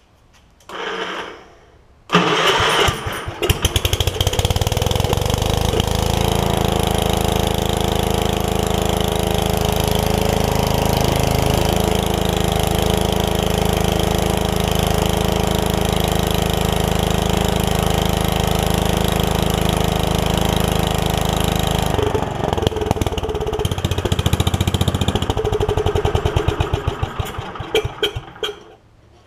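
Gravely 5665 walk-behind tractor's Kohler engine catching after a short crank about two seconds in and running steadily, its speed rising and falling in the last few seconds before it is shut off near the end. It runs like a top with the original carburettor back on and the flooding fuel pump fault dealt with, though it doesn't idle down very well, so the idle probably needs adjusting.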